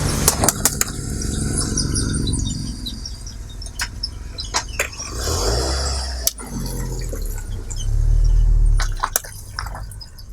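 Eggs and crunchy objects being crushed: sharp cracks and crackles of breaking shells with wet, squelching liquid, over a low rumble.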